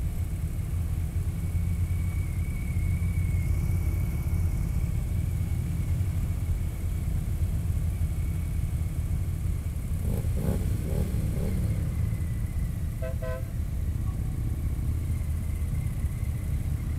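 Touring motorcycle riding at road speed: steady low engine rumble mixed with wind noise, heard from the rider's seat. About thirteen seconds in come a few short beeps, like a horn.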